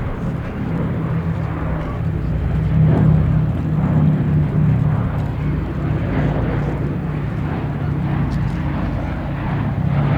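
A Boeing B-17G Flying Fortress's four Wright R-1820 radial engines running with a steady low drone that swells slightly a few seconds in.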